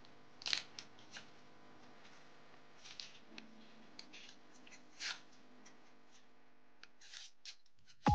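Paper-foil alcohol prep pad sachet being torn open and pulled apart: short dry crinkles and rips about half a second in, again near three and five seconds, and a cluster near the end, over a faint steady hum.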